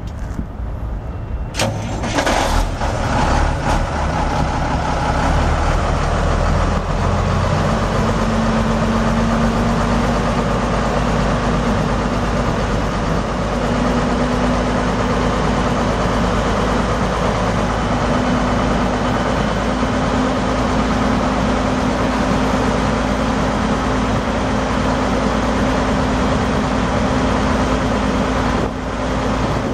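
Mack E7 12-litre inline-six turbo diesel in a semi tractor starting about two seconds in, then settling into a steady idle from about seven seconds on.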